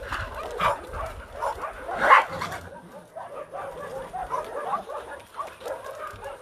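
Several dogs playing rough, giving many short barks and yaps; the loudest bark comes about two seconds in.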